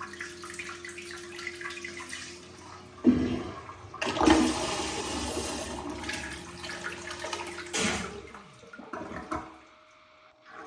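Toilet fitted with a Moen bidet seat flushing, the water rushing in suddenly about three seconds in and surging a second later, then tailing off as it refills and falling quiet near the end. A steady hum runs under the water before and during the flush: the flush/refill noise issue.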